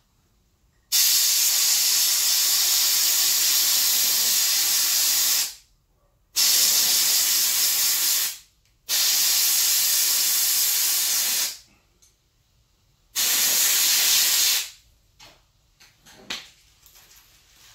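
Compressed air hissing in four long blasts, the first about four seconds and the others shorter, with short silent gaps between them, blowing loosened carbon off soaked direct-injection intake valves.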